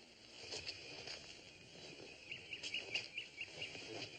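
Faint outdoor ambience of insects and birds chirping: quick runs of short high chirps over a steady high hiss, with a few soft knocks.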